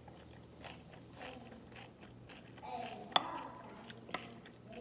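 Close-miked chewing of naengmyeon cold noodles, with soft crunches and a sharp click a little after three seconds in, and a smaller one about a second later.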